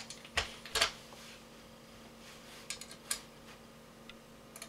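Small metal clicks and ticks of screws and a screwdriver being worked into a rifle's RIS rail: two sharper clicks near the start, then a few fainter ticks, over a faint steady hum.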